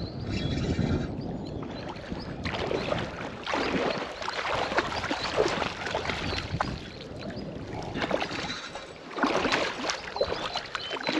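Water sloshing and splashing in irregular bursts, with small clicks and knocks among them.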